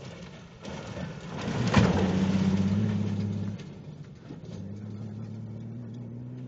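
Off-road vehicle's engine running hard as it drives close past, with noise from the tyres. It is loudest about two seconds in, drops away after about three and a half seconds, then holds a steady engine note that rises slightly.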